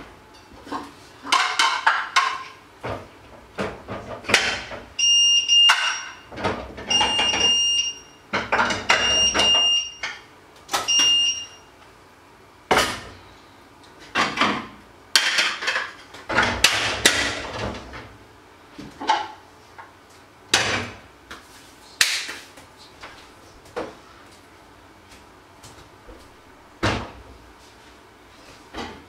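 Dishes, pots and cutlery clattering and knocking at a kitchen sink during washing up, with short rushes of running water. From about 5 to 11 seconds an electronic appliance beep sounds four times, about every two seconds.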